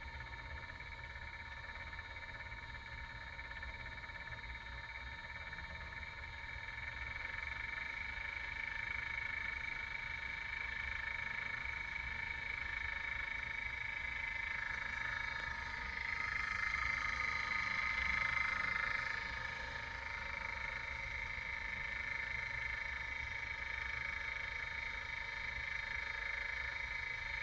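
Anova Pro sous vide cooker running with a loud, rapid clicking, which the owner takes for a common defect rather than its normal sound. The noise grows louder about seven seconds in.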